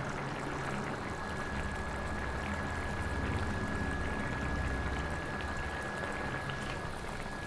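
Pot of basmati rice boiling, with steady bubbling and small pops as the last of the water cooks down into the rice.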